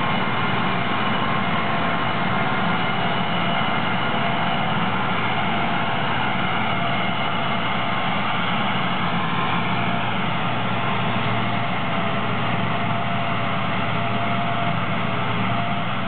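Gleaner R62 combine running steadily while cutting soybeans: an even engine drone with several steady whining tones from the machine over it.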